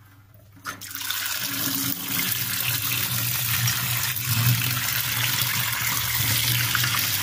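Water running steadily over fresh chhena curds, rinsing out the sourness of the citric acid used to split the milk; the flow starts about a second in.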